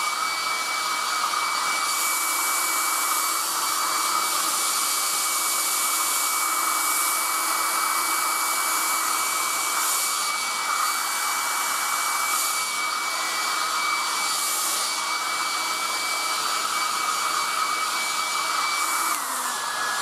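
Black & Decker Stowaway 1200 travel hair dryer running steadily with a rush of air and a high motor whine. About a second before the end it is switched down a setting, and the whine drops in pitch.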